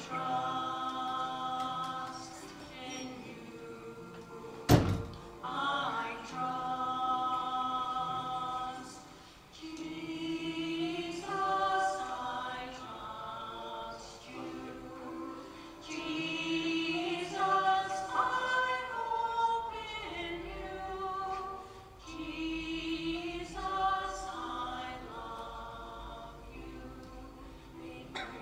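A choir singing a hymn in phrases of held notes, with one sharp thump about five seconds in.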